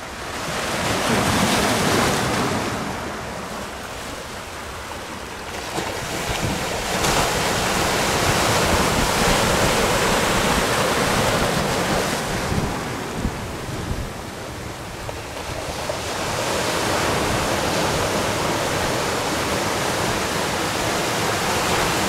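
Ocean surf, waves breaking and washing in, the noise swelling and ebbing three times, with wind rumbling on the microphone.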